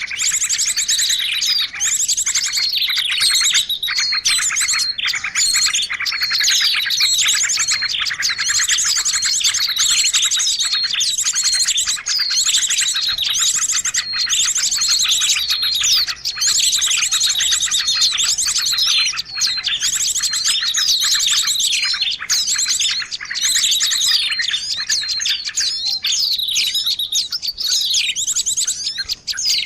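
Songbird song: rapid chirps, slurred whistles and trills running without a break.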